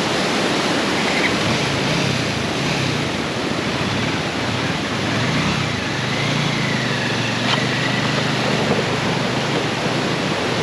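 Rushing river water with a motorcycle engine running steadily underneath.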